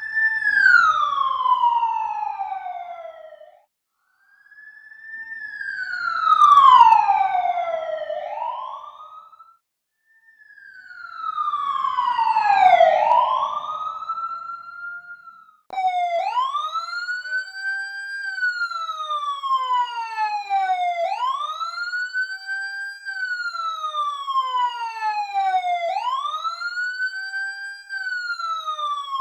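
Emergency-vehicle siren: three separate sweeps, each rising then falling in pitch with a short gap between them, then a steady wail that climbs quickly and falls slowly, repeating about every five seconds.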